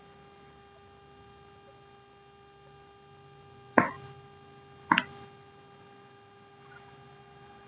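Two sharp cracks about a second apart, the popping of the back's joints under a chiropractic spinal adjustment, over a faint steady hum.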